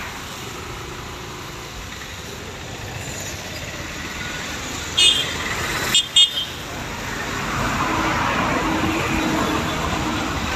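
Street traffic noise outside, with vehicles running past and two short horn toots about five and six seconds in; the traffic grows louder in the last few seconds.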